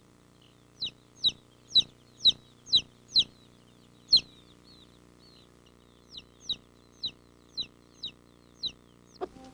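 Young chicks peeping: short, high, downward-sliding peeps about two a second, in two runs with a pause of about two seconds between them.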